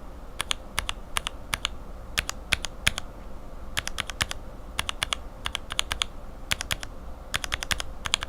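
Lubed linear mechanical keyboard switches (Cherry retooled bottom housings, Revo White stems and springs) pressed and released again and again in runs. Each stroke is a sharp bottom-out clack followed closely by a top-out click.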